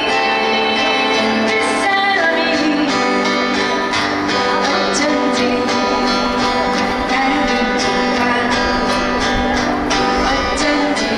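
Acoustic guitar strummed steadily under a singing voice, in a live duo performance.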